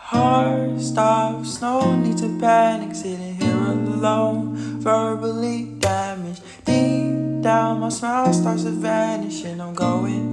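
Background music: a guitar-led track with held chords under a moving melody.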